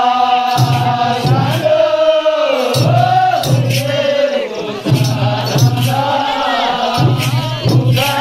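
A group singing a Nepali chudka folk song to a steady madal drum beat, the melody rising and falling in long sung lines.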